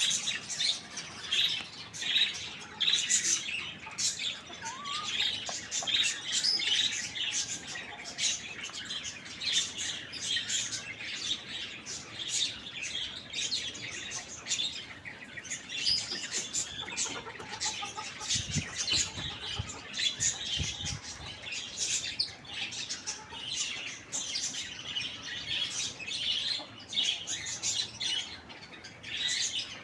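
Many small birds chirping rapidly and continuously in short, overlapping high calls, with a few low thumps near the middle.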